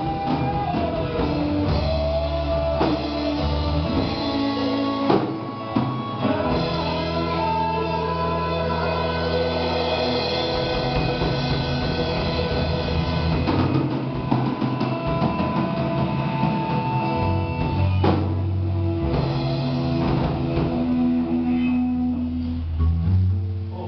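A rock band playing, with guitar and drum kit.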